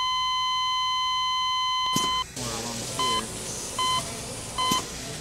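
Hospital heart monitor giving a continuous flatline tone that cuts off about two seconds in. Steady beeps follow, a little under a second apart, with faint muffled voices underneath.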